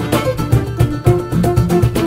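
Acoustic folk-style band music: strummed plucked strings over a steady, quick rhythm, with sustained melody notes.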